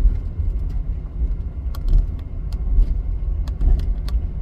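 Vehicle driving: a steady low rumble with a few faint ticks.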